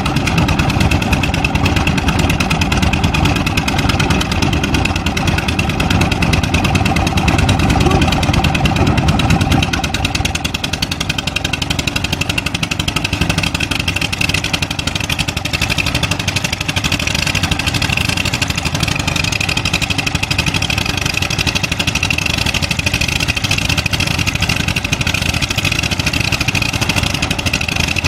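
Kobelco SK200 excavator's diesel engine running as the machine works, heavier and louder at first, then easing to a lower, steadier note about ten seconds in.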